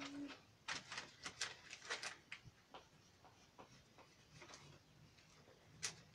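A series of faint clicks and taps, several in quick succession in the first couple of seconds and two more near the end.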